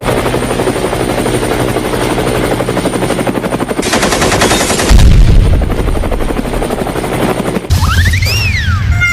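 A rapid, mechanical-sounding rattle with a rushing noise burst in the middle, a heavy low rumble about five seconds in, and a whistle that rises and then falls near the end.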